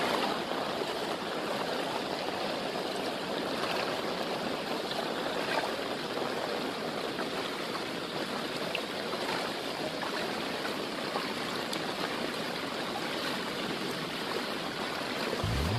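Heavy rain pouring steadily onto standing floodwater, an even, dense hiss of water. A music track cuts in at the very end.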